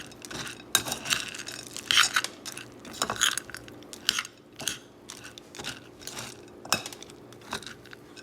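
A spoon stirring dry kibble mixed with rice, tuna and sweet potato in a bowl: irregular crunchy scrapes and clinks against the bowl, about one or two a second.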